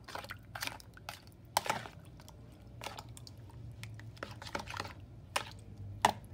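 A spoon stirring sliced melon in evaporated milk in a plastic bowl: irregular clicks, knocks and scrapes of the spoon against the bowl, with a sharper knock about a second and a half in and another near the end.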